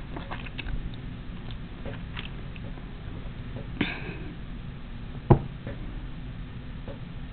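Hands tying square knots in embroidery floss on a bracelet project board: light ticks and rustles of handling, a brief scratchy rustle near the middle and one sharp knock about five seconds in, over a steady low hum.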